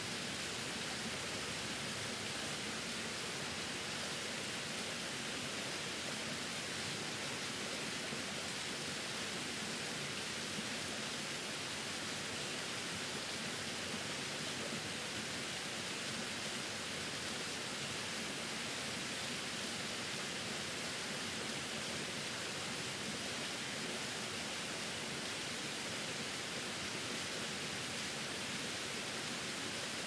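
Small waterfall splashing down a rock face: a steady, even rush of falling water with no change throughout.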